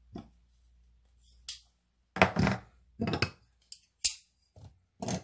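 Knives being picked up and set down on a hard countertop: a string of separate knocks, clicks and clinks of blades and handles against the surface, the loudest about two seconds in.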